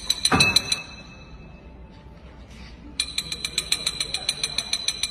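A high-pitched alarm-like ringing that pulses about eight times a second, stopping shortly after the start and returning about three seconds in. A low thump comes as each burst ends.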